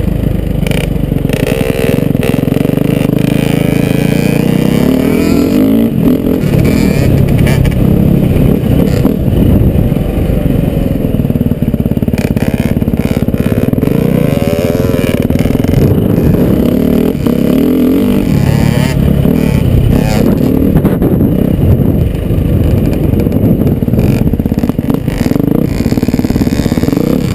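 Dirt bike engine running at speed around a motocross track, revving up and down continuously through the corners, heard close from the rider's helmet.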